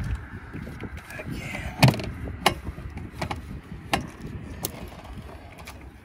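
Scattered clicks and clacks of hands and tools working loose parts in a car's engine bay, about half a dozen sharp ones, the loudest about two seconds in.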